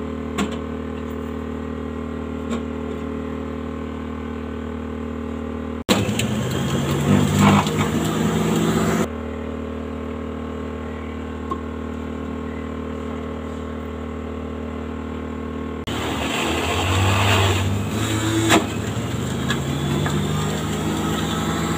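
Electric juicer motor running with a steady hum. Twice, about six seconds in and again from about sixteen seconds to the end, apple pieces are pressed down the feed tube and the machine grinds louder and rougher as it shreds them, its pitch wavering under the load.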